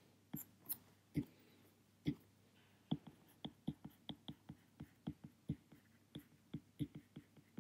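Stylus tapping on a tablet screen while handwriting: faint short clicks, a few spaced out at first, then about three or four a second from about three seconds in.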